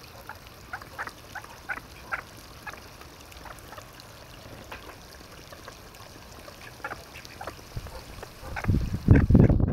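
Ducks quacking in short, scattered calls. Near the end a loud low rumble comes in over them.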